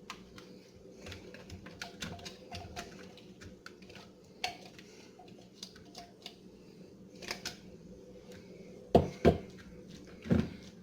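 Spatula scraping a blended herb and onion mixture out of a plastic food processor bowl into a mixing bowl: a run of small scrapes and clicks, with a few louder knocks of the containers near the end.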